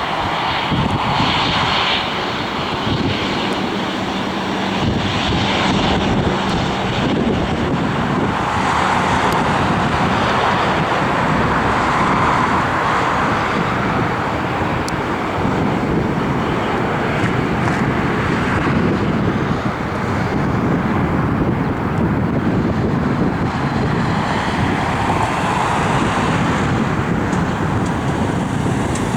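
Airliner engines running loud and steady as the aircraft moves past, a continuous rushing roar that swells twice.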